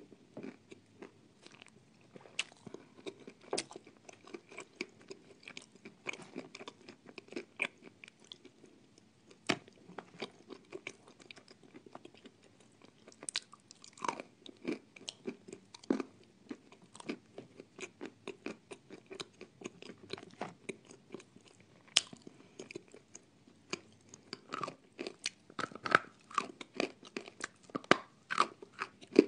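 A person biting off and chewing hard, dry grey-white chunks: sharp crunches and crackles that come thick and fast, growing denser and louder near the end.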